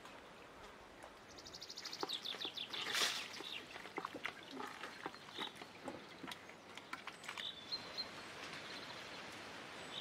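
Small birds chirping now and then, with a fast run of repeated notes about a second in. Under them, light rustling and knocking from hands working tomato pulp in plastic colanders over a steel bowl, loudest about three seconds in.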